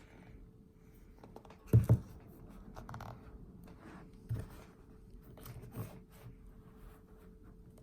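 Handling noises: rubbing and scraping, with a loud double thump about two seconds in and lighter knocks later. A faint steady hum runs underneath.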